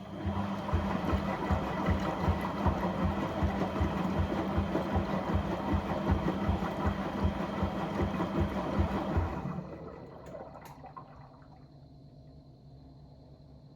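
A motor-driven pump running with rushing water, a steady hum under it and a regular low pulsing about four times a second; it stops about nine and a half seconds in.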